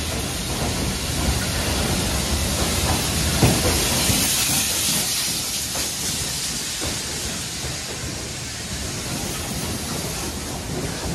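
Victorian Railways K-class 2-8-0 steam locomotives (K100 leading, with K183 and K190) running past alongside the platform, a steady rumble with steam hissing. The hiss is strongest a few seconds in, just after a single sharp knock.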